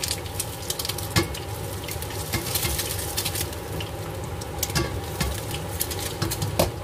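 A basil and sour pork stir-fry sizzling in the pan, with a spatula stirring and clicking against the pan throughout.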